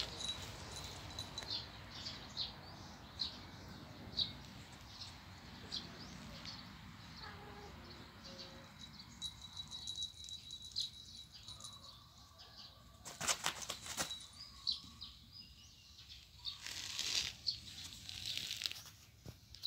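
Two cats scuffling and wrestling on a woven mat, giving short bursts of rustling and paw-scrabbling, loudest about two-thirds of the way in and again near the end. Faint short high chirps repeat about once a second behind it.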